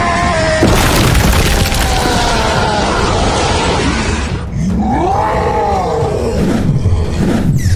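Cartoon fight sound effects: a sudden heavy crash about half a second in with rushing noise after it, then a character's drawn-out vocal cry that rises and falls in pitch.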